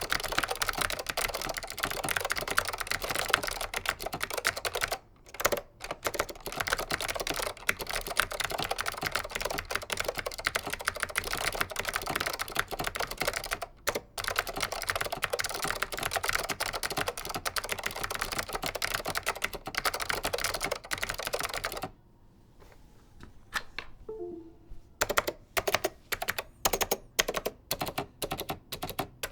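Leading Edge DC 2014 keyboard with clicky SKCM Blue Alps switches, typed on fast in a dense run of keystrokes with a few short breaks. Near the end the typing stops for a couple of seconds, then resumes as slower, separate key presses, about two a second.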